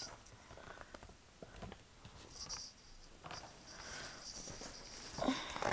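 Faint rustling and light taps of a large picture book being handled.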